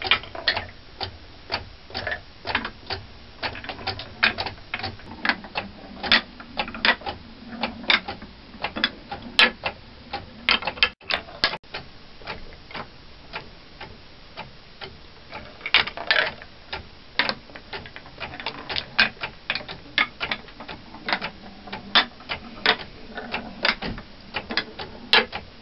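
Wooden clockwork marble lifter running: its wooden mechanism and the glass marbles it carries make a steady, uneven train of sharp clicks and knocks, about three a second.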